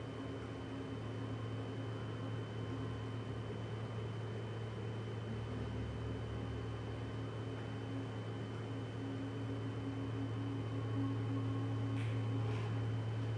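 Steady low electronic hum with a thin high tone over it and a faint hiss, getting slightly louder toward the end, with two faint clicks near the end.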